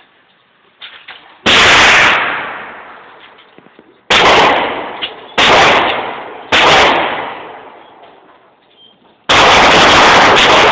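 .45-calibre pistol firing on an indoor range. Four single shots, the last three coming about a second or more apart, each with a long echoing decay. From about nine seconds in, a fast string of shots overloads the recording.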